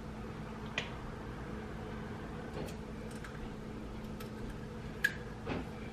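A few faint clicks and ticks as the cap of a small bottle is twisted open by hand, the sharpest about five seconds in, over a steady low hum.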